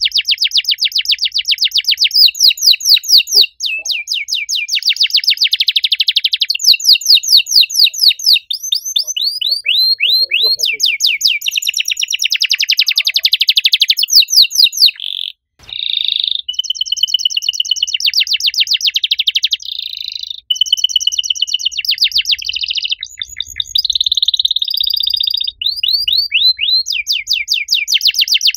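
Domestic canary singing a loud, long song of fast trills and rolls, the speed of the repeated notes changing from phrase to phrase, with a short break a little past halfway.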